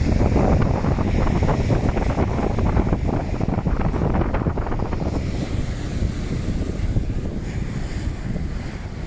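Strong wind buffeting the microphone over the wash of waves on the beach. It is gustier in the first half and eases a little after about five seconds.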